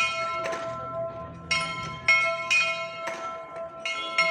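A metal bell struck again and again at an uneven pace, about seven strokes, each one ringing on under the next. It is rung as the signal for weeding time.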